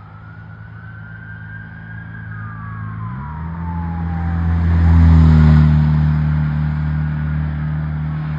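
Ambulance siren in a slow wail, fading, while a vehicle engine revs up about three seconds in and passes close, loudest around five seconds in.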